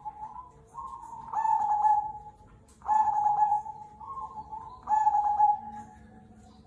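Zebra dove (perkutut) singing its rolling cooing song: softer trilled notes building into three loud coos, each about two seconds apart.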